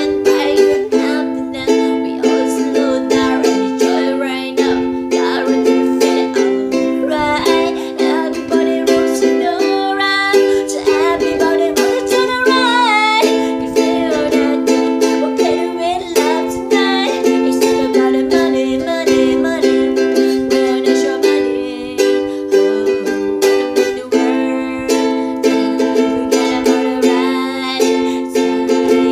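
Ukulele strumming chords in a steady rhythm.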